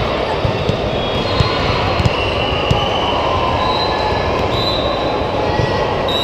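Steady loud din of a busy multi-court indoor volleyball hall, with sneakers squeaking on the hardwood floors on and off and a few short thuds of balls being hit.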